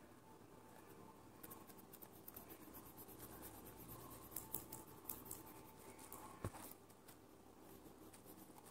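Faint, quick scratchy strokes of a pen scribbling colour onto paper, with one light tap about six and a half seconds in.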